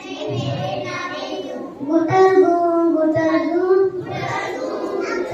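A young boy singing into a handheld microphone, holding long notes in short phrases.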